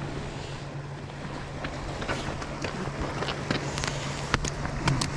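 A steady low engine hum under wind noise on the microphone, with scattered sharp clicks and ticks, most of them in the second half.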